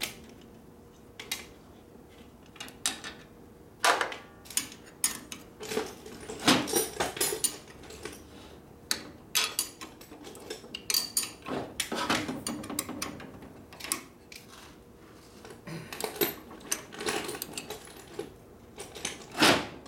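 Steel wrench clinking against a wheel truing stand's mandrel and nuts as they are adjusted and tightened: irregular metal clicks and clinks.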